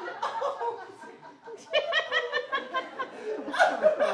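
A person laughing: a quick run of evenly spaced 'ha-ha' pulses about two seconds in, with louder short bursts of voice near the end.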